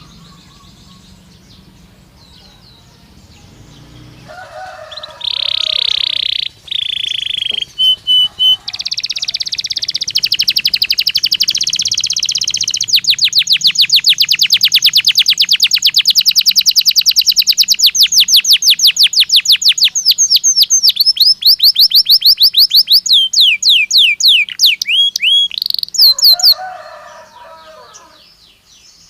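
Domestic canary singing one long, loud song: steady high trills give way to a long roll of rapidly repeated notes, several a second, and the song closes with a few falling swoops. The first few seconds are quieter, before the song begins.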